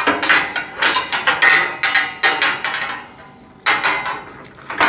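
Metal parts of a storage rack clanking and rattling as support pieces are handled and fitted to a bracket: a quick run of knocks, about three a second, for the first three seconds, then two more knocks near the end.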